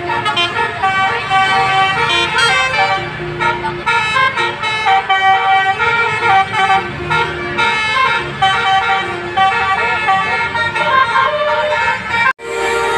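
Basuri musical bus horns playing a quick tune of short held notes, several tones sounding together and changing pitch every fraction of a second. The horn cuts off suddenly near the end.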